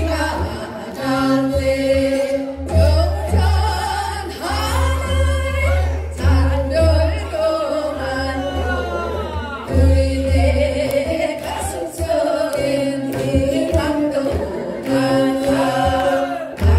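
A group of women singing a Korean folk song (minyo) together through microphones, with wavering, vibrato-laden melody lines over an accompaniment with a steady low bass.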